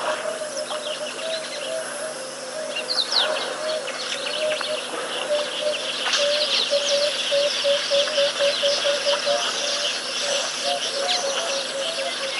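A mixed chorus of wild birds: one bird repeats a low note in long, quick series while others give many short, sharp high chirps, busiest in the second half.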